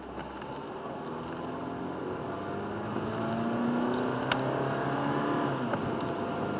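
A car's engine and tyre noise heard from inside the cabin as the car pulls away and accelerates on a wet road, the engine pitch rising and the road noise growing steadily louder. A couple of sharp clicks sound in the second half.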